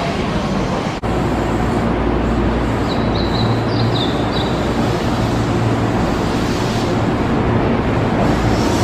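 Keihan 8000-series electric train running along the platform: a steady rumble of wheels and motors with a low hum. A few short, high squeaks come about three to four seconds in.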